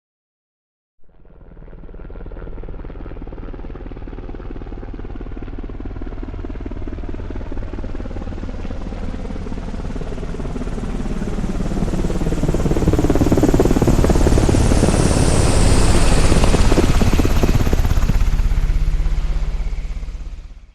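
An aircraft flying past: its engine sound comes in about a second in and builds steadily. It is loudest past the middle, its pitch falls as it goes by, and it dies away near the end.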